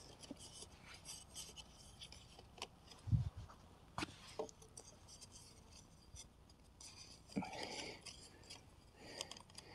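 Faint wooden clicks, knocks and rubbing as thin sticks are pushed and pressed together into a stacked stick cage, with a dull knock about three seconds in and a brief scrape near the end.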